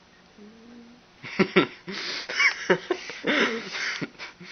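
Bursts of laughter and giggling, opening about a second in with two sharp clicks.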